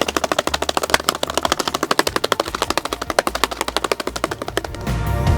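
Foley effect of a bird's wings flapping in flight: a fast, even flutter of sharp flaps, about ten a second, that stops shortly before the end.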